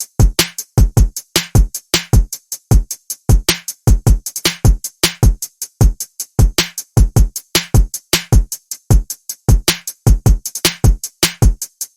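Trap drum-machine beat: a fast, steady run of short programmed drum hits, many with a deep low kick underneath.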